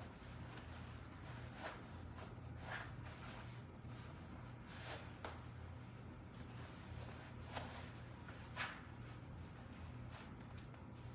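Faint rustling of belt and gi cloth as a belt is tied around a waist, with a handful of short scuffs scattered through, over a steady low hum.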